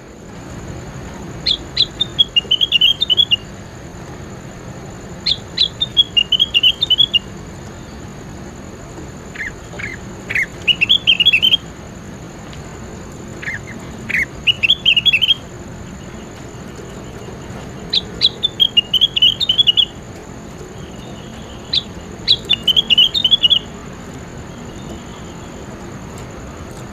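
A songbird singing six short phrases of quick, high chirping notes, one about every four seconds, some phrases opening with a couple of lower notes. A steady high-pitched tone runs underneath.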